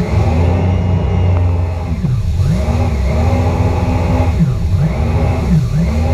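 Jet ski engine revving as the throttle is eased off and opened again. Its pitch falls and climbs back about three times, over the rush of spray from the hull.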